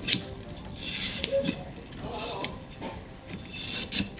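A plastic rear wiper blade being handled on its wiper arm: rubbing and scraping as the blade is worked against the arm, with a few sharp clicks from the blade's clip.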